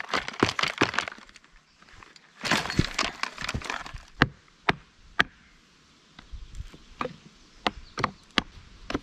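Dry twigs and branches cracking and snapping, in quick dense clusters and then single sharp snaps about every half second.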